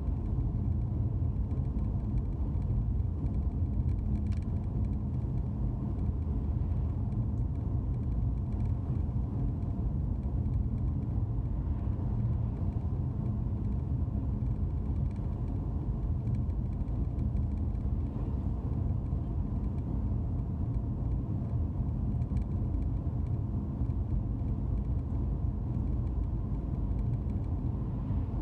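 Steady low rumble of a car's engine and tyres on the road, heard from inside the cabin while driving at a steady pace.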